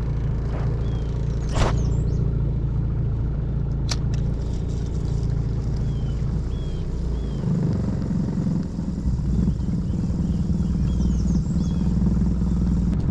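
Boat motor running steadily with a low drone; its pitch drops and shifts about seven and a half seconds in. Two sharp clicks cut across it in the first few seconds.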